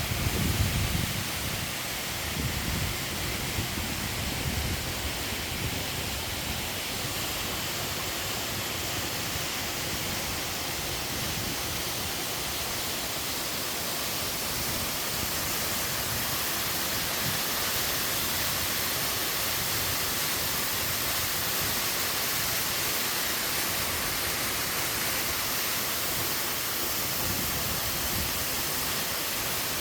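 A waterfall pouring steadily: an even, full rush of falling water. A brief low rumble sounds in the first second.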